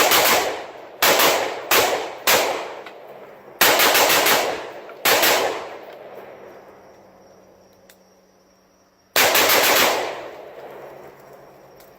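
AR-15-style rifle with a 16-inch barrel firing single shots in an uneven string. Six shots come in the first five seconds, and after a pause of about four seconds there is one more. Each shot echoes and fades over about a second.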